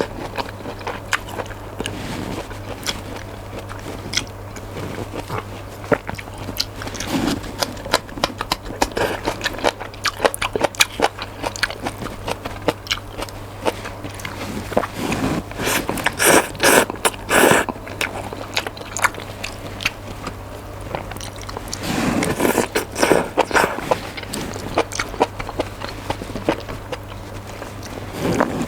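Close-miked chewing and wet mouth sounds of someone eating noodles, with denser, louder bursts twice in the middle, over a steady low hum.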